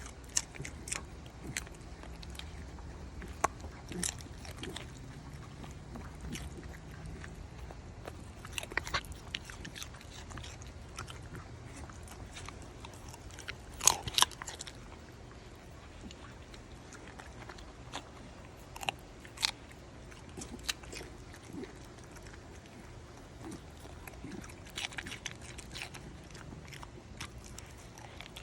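Raw carrot being bitten and chewed: irregular crisp crunches, with a louder pair of bites about halfway through.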